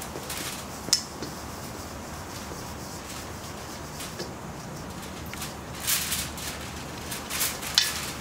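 Dry ingredients being mixed in a stainless steel mixing bowl: flour rustling and scraping against the metal, with a sharp tap about a second in and a few louder scrapes near the end.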